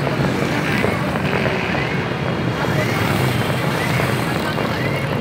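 Motorcycle and road traffic noise at a roadside, with short rising toots repeating about once a second.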